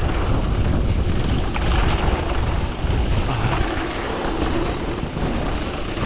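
Wind buffeting an action camera's microphone as a mountain bike rides fast down a dirt trail, with the tyres rumbling over the packed dirt. A steady, heavy rush with no break.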